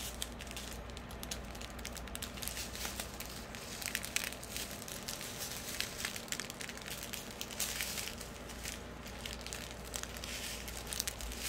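Plastic bags of diamond painting drills crinkling and crackling as they are handled and rolled up, with irregular small crackles throughout.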